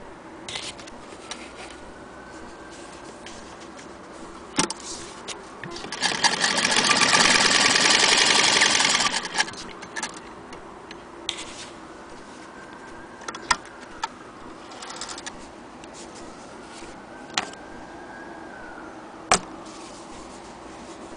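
Antique hand-crank Singer Model 28K vibrating-shuttle sewing machine running for about three seconds, a fast steady clatter of stitching through denim. A few single knocks and clicks come before and after it.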